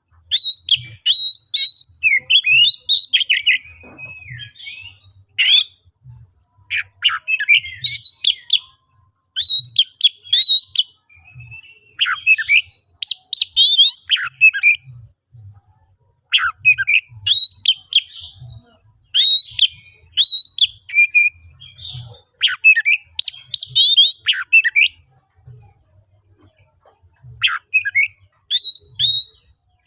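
Oriental magpie-robin singing loudly in fast bursts of varied whistles, chirps and trills, broken by short pauses: an excited, aggressive full song of the kind used to provoke rival magpie-robins into answering.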